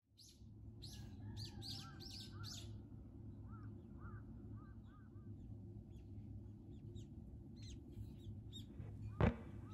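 Wild birds calling: a quick run of sharp high calls in the first couple of seconds, then softer repeated chirps and scattered single calls, over a low steady rumble. A sharp knock near the end.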